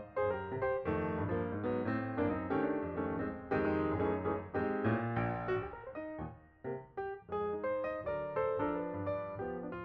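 Background piano music, notes played in a flowing melody with chords.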